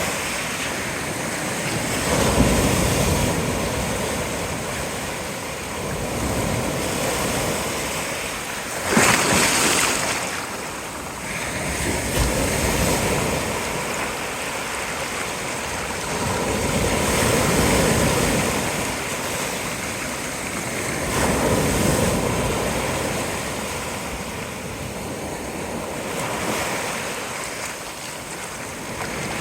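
Ocean surf breaking on a beach, swelling and ebbing as one wave after another comes in, with a sharp, loud crash about nine seconds in.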